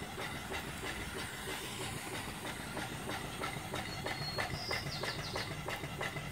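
Antique vertical single-cylinder steam engine (2-inch bore, 3-inch stroke) running on live steam: a fast, even chuffing of exhaust beats over a steady steam hiss.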